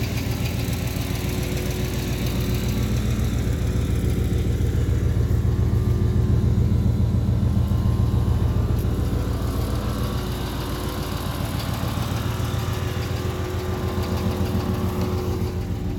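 GM truck engine running steadily, getting somewhat louder in the middle and then easing back. The engine had seized after losing its oil and was freed by hand; the owner blames an earlier screech on a piston ring stuck in a piston.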